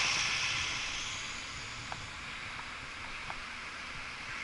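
Steady rush of wind and road noise on a camera mounted on a moving bicycle, with a louder rush fading over the first second and a few faint ticks.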